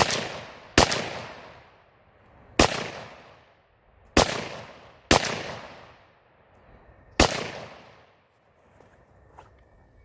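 Six shots from an SKS semi-automatic rifle (7.62×39 mm) fired at an uneven pace over about seven seconds, each shot followed by a long echoing tail.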